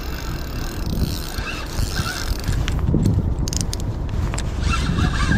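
Fishing reel on a bottom rod being cranked against a heavy pull, its drag giving out a short burst of clicking about three seconds in. A low rumble of wind on the microphone runs under it.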